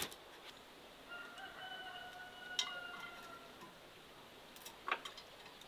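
Faint rooster crowing: one long call of about two seconds with a slight fall in pitch. Two sharp taps, one during the crow and one near the end.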